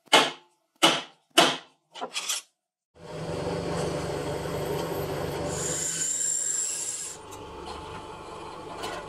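A center punch marking metal plates: three sharp metallic strikes and a quick double strike. Then a drill press starts up and a step drill bit cuts into the clamped metal plates, with a high-pitched squeal for a second or so while the bit bites, before settling to a lighter steady run.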